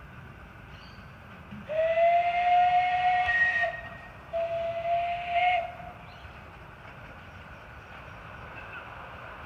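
Steam whistle of a 7¼-inch gauge live-steam miniature locomotive blowing two blasts at a steady pitch, a long one of about two seconds, then a shorter one after a brief pause.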